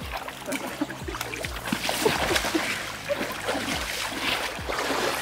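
Splashing water and river flow as a hooked king salmon is played in a shallow river, with short irregular splashes over the steady sound of the current.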